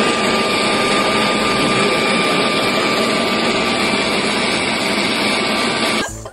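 Yardworks leaf blower running steadily, a loud rushing of air with a thin steady whine, cut off suddenly near the end.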